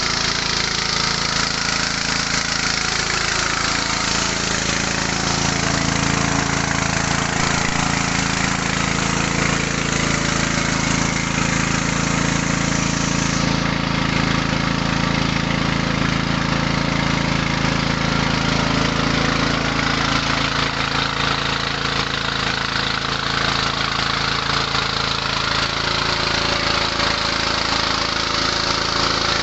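Mini rice huller and polisher driven by a small 6.5–7 hp petrol engine, running steadily: an even engine note under a continuous machine noise.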